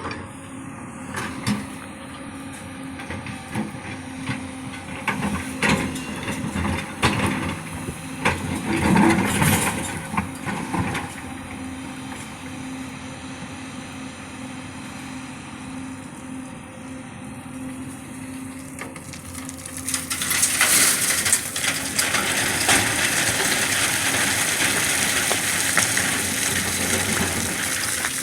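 Excavator's engine running with a steady hum, with irregular clanks and knocks of the machine working during the first ten seconds or so; from about twenty seconds in it turns louder and noisier.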